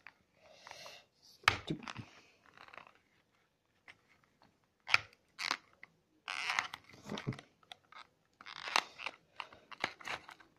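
Fingers picking and tearing at a Nestlé Smarties candy box to get it open, giving irregular bursts of crinkling, crunching and tearing packaging with short pauses between.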